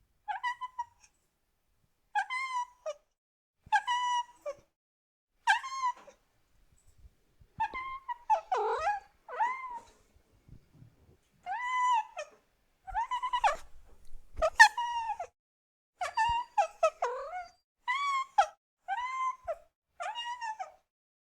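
A cat meowing over and over: about fifteen short, high-pitched meows, each rising then falling in pitch, spaced a second or two apart with a brief pause midway.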